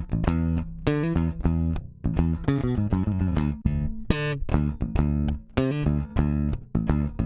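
Solo electric bass guitar playing a run of short plucked notes, several a second, with a strong low end. The bass is processed through the Waves dbx 160 compressor plugin.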